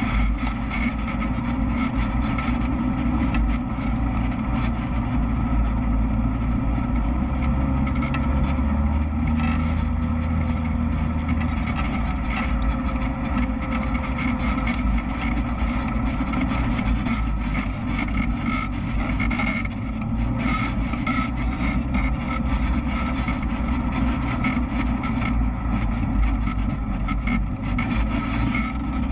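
Off-road side-by-side's engine running steadily while it drives along a rough trail, with scattered knocks and rattles from the bumpy ground.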